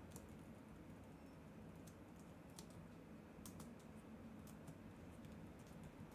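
Faint computer keyboard typing: scattered, irregular keystroke clicks.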